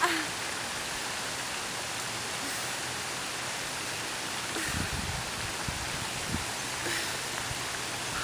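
Steady rushing of a small waterfall cascading into a pond, with a few brief low rumbles about five to six and a half seconds in.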